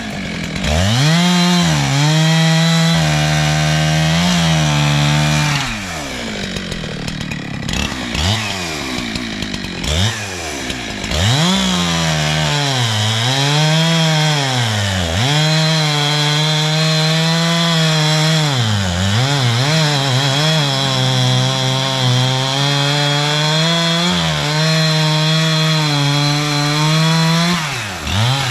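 Two-stroke chainsaw cutting up a downed tree. The revs repeatedly climb to full speed, hold there, and fall back toward idle between cuts, with long full-throttle runs in the second half.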